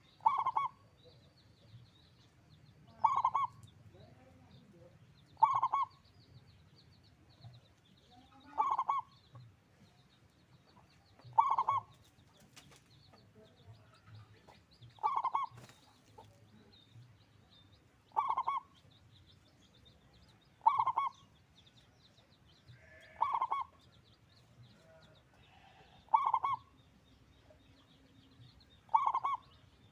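A zebra dove repeatedly cooing its short song phrase, one phrase about every two and a half to three seconds, eleven times in all.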